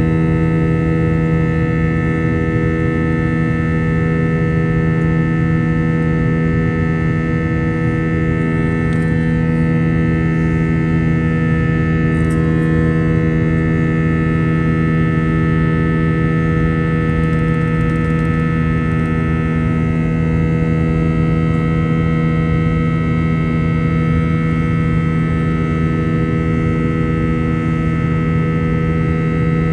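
Steady cabin drone of an Airbus A321's twin turbofan engines in the climb after takeoff: a constant low rumble with a strong held hum and several higher steady tones above it.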